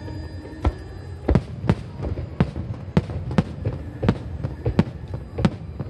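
Aerial fireworks bursting in a rapid, irregular series of sharp bangs, about two a second, over a steady low rumble.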